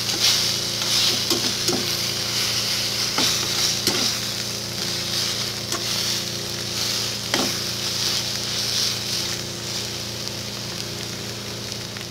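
Beaten eggs with chopped onion, tomato and chili sizzling in a frying pan, stirred and scraped with a metal slotted spatula, with a few sharp clicks of the spatula against the pan. The sizzle eases slightly toward the end.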